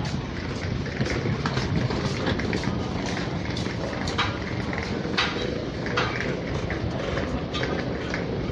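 Wheeled suitcases rolling over a tiled walkway: a steady low rumble, with a few sharp clicks in the middle.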